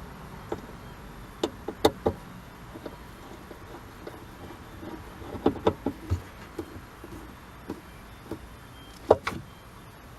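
Irregular sharp clicks and knocks of hand work on a car's trunk light switch: tools, the screw and plastic parts being handled, in three small clusters of taps.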